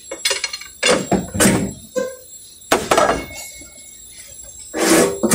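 Irregular metal clanks and knocks from tools and parts being handled during under-vehicle work, one ringing briefly about two seconds in and a louder, longer one near the end.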